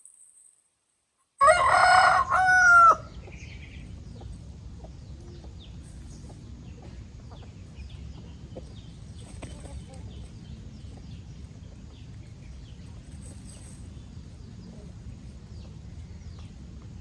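A rooster crows once, loud, about a second and a half in, the call breaking briefly and falling away at the end. After it comes a steady low background hum with faint scattered high ticks.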